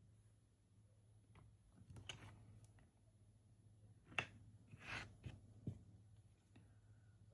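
Faint clicks, taps and short scrapes of small nail-stamping tools being handled, with a sharp tap about four seconds in and a short scrape about five seconds in, over a low steady hum.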